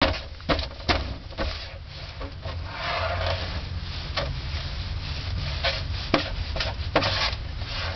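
Small rocks scraping and clicking against a hard plastic play-table top as a child's hand slides them around and sets them down: a scatter of sharp taps with a stretch of scraping in the middle, over a low steady rumble.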